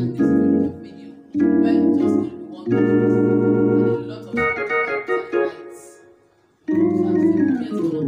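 Organ voice on a Yamaha electronic keyboard: a run of sustained chords, each held about a second and then released, with a short break a little past halfway.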